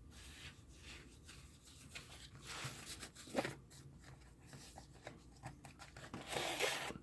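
Faint rustling and light handling noises of packaging and tool kit parts being moved about by hand, with a few brief louder rustles, the plainest about a third of the way in and near the end.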